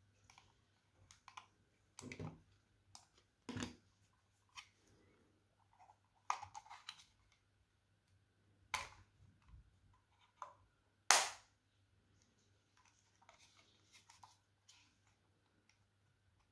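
Irregular plastic clicks and short scrapes as a plastic card and a plastic pry tool are worked into the seam of a Microsoft RJN-00026 Bluetooth mouse's shell. The sharpest clicks come about 9 and 11 seconds in.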